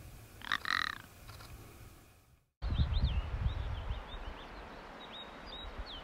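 A male ptarmigan gives a short croaking call about half a second in. After a sudden break, there is low wind rumble and a run of short, high chirps from small birds.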